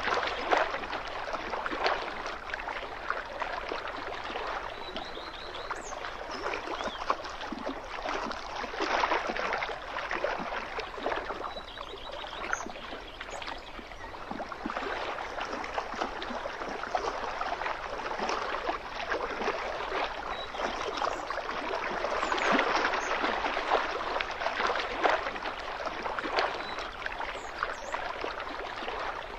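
Small waves of lake water lapping and splashing against the shoreline: a steady wash of many small splashes that swells and eases every several seconds.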